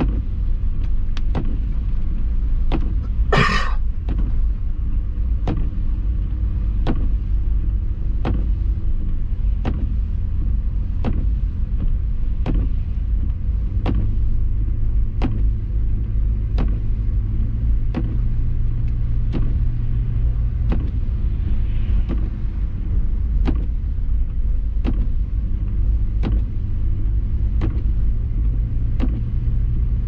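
Cabin sound of a 2005 Subaru Forester X driving on snow tyres: steady engine and tyre rumble, with the engine note a little stronger partway through. A short sharp click repeats a little faster than once a second, and a brief louder scraping hiss comes a few seconds in.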